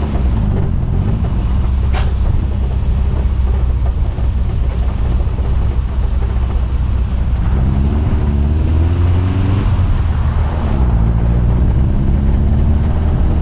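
Old Bugatti car's engine running as the car drives, its pitch rising and falling with the revs twice in the second half. A single sharp click is heard about two seconds in.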